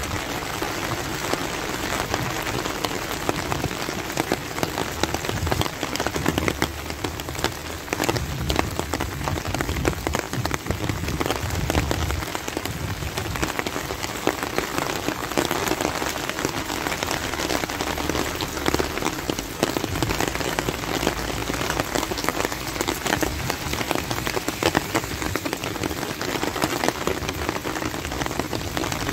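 Steady rain falling on wet pavement and paving stones, with many sharp drop impacts close by.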